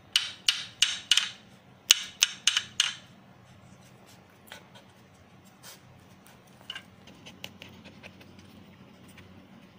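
A wooden stick knocked sharply against the hard floor under a bed, two quick runs of four knocks in the first three seconds. After that, faint scattered scratching and clicks, and a Pomeranian puppy panting lightly.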